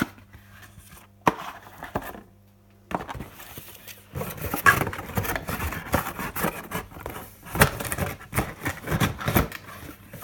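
Plastic packaging being handled: a few sharp clicks, then from about three seconds in a dense run of crinkling and cracking. A low hum is heard until about four seconds in.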